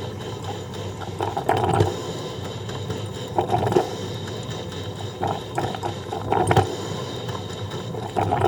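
Coffee percolator running: water perking up the stem in irregular gurgling spurts, roughly one a second, over a steady background.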